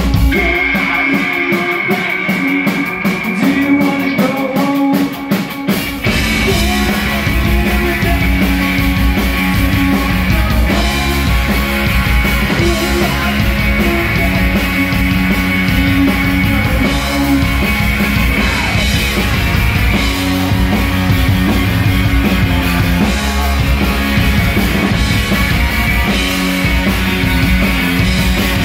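Live rock band playing: a female lead vocalist sings over electric guitars, bass guitar and drum kit. The opening is sparser with little bass and an even rhythmic beat; about six seconds in, the bass and full band come in and the sound fills out.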